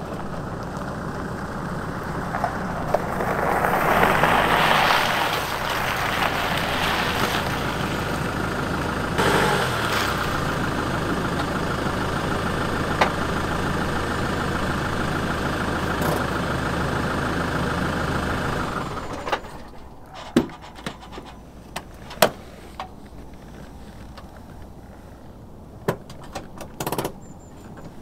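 Land Rover Defender 90 engine running as the truck rolls onto the river ice, with a louder stretch of tyre noise a few seconds in, then idling steadily before it is switched off about two-thirds of the way through. After that, a few sharp clicks and knocks, ending with the driver's door opening.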